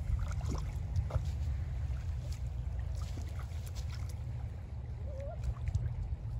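Wind rumbling on the microphone, with light splashing and lapping of shallow lake water as a child wades and drags a branch through it.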